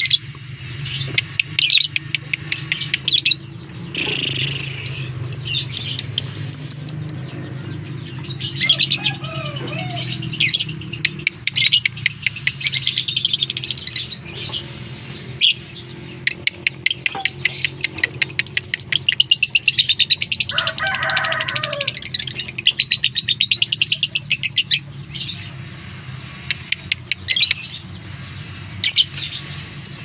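Lovebirds chattering in long, rapid trains of high, shrill chirps, with short pauses between the runs, over a steady low hum.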